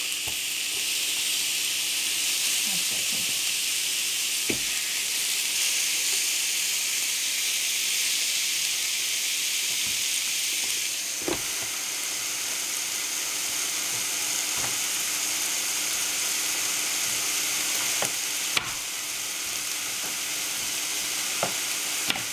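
Lamb ribs sizzling on a hot electric grill, a steady hiss, with a few light clicks now and then.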